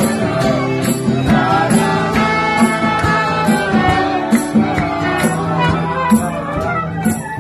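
A small band playing live: trumpet, violin, acoustic guitar and drums, with sustained melody lines over a steady beat.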